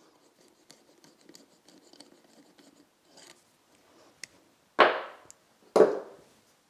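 Faint scraping and rubbing of parts being handled at a workbench, then two loud knocks about a second apart near the end.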